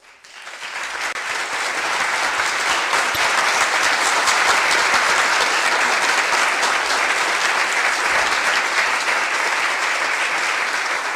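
Audience applauding: many hands clapping, swelling up over the first second or two, then holding steady.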